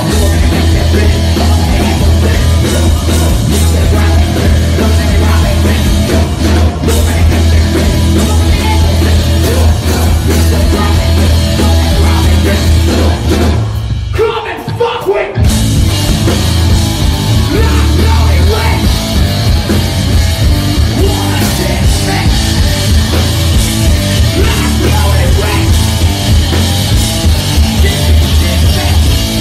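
Live rock band playing loud, with drum kit and electric guitar, recorded on a phone in the crowd. About halfway through, the low end and drums drop out for a second or so, then the full band comes back in.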